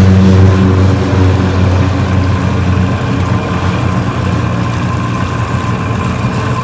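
Boat motor running with a steady engine drone, easing off and getting gradually quieter.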